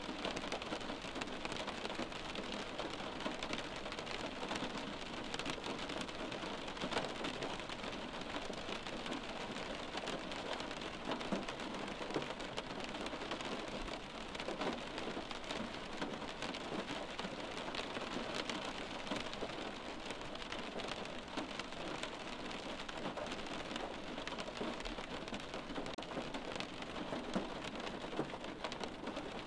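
Steady rain falling, with many small drop ticks.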